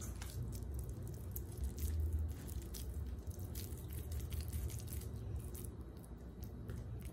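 Soft squishing of a moist chicken-and-bread cutlet mixture being scooped from a steel bowl and rolled between oiled hands, with scattered faint clicks, over a low steady hum.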